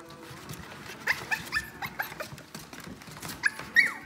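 Cavapoo puppies whining and yipping at the pen fence: a quick run of short high calls that starts about a second in and is loudest near the end.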